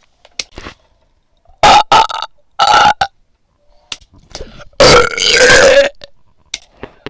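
A person burping loudly: short burps about two and three seconds in, then a longer, wavering burp lasting about a second near the five-second mark.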